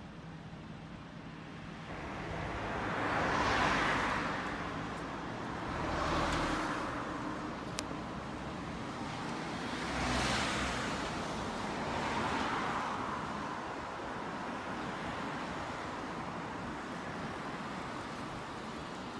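Road traffic: cars passing one after another, each swelling and fading as its tyres go by, about four pass-bys in the first dozen seconds, then a steadier traffic hum.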